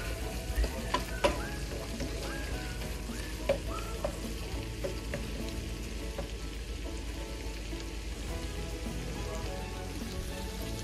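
Butter garlic shrimp sizzling in a nonstick frying pan while a wooden spoon stirs it, with a few sharp taps of the spoon on the pan in the first four seconds.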